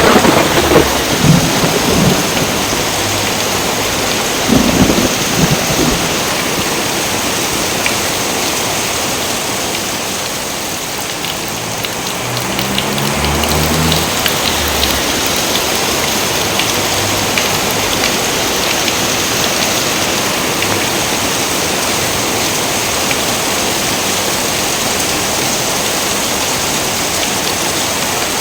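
Steady heavy rain with thunder rumbling: two loud rolls in the first six seconds, then a softer low rumble around halfway.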